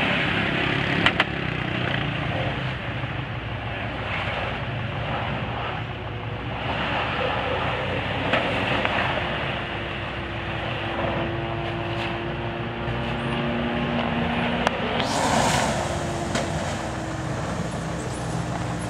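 SUV engine working hard under load as the vehicle climbs a steep dirt slope. The engine note holds steady, with slight shifts in pitch as the throttle changes.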